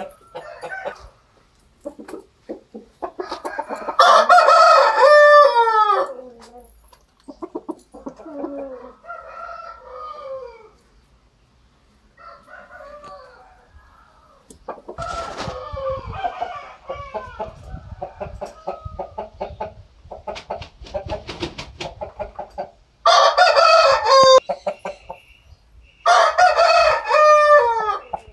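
Aseel roosters crowing: three loud crows, about four seconds in, then twice near the end, with quieter clucking and low calls in between.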